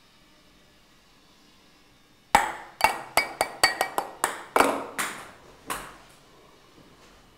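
A small ball bouncing among glass tumblers: about a dozen quick, sharp clinks with bright glass ringing, starting a little over two seconds in and dying away about six seconds in.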